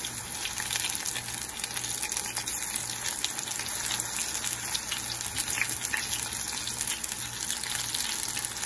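Batter-coated mushroom pieces deep-frying in hot oil in a steel pan: a steady, busy sizzle with constant small crackles as the batter cooks.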